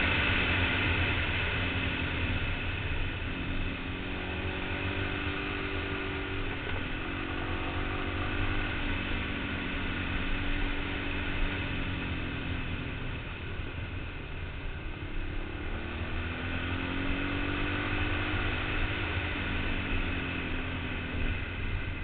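Yamaha TT-R225 trail bike's single-cylinder four-stroke engine running under way, its pitch rising and falling several times as the throttle is opened and closed, with wind rumbling on the helmet-mounted camera.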